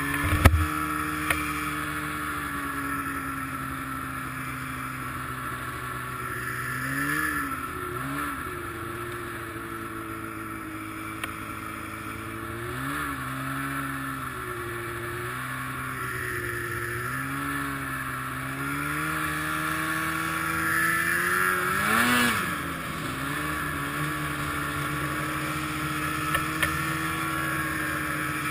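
Arctic Cat ZR 800 snowmobile's two-stroke twin running at idle, blipped up briefly and dropping back about seven times, the biggest rev a little before the end. The sled still has running problems, which the owner suspects come from bad injectors.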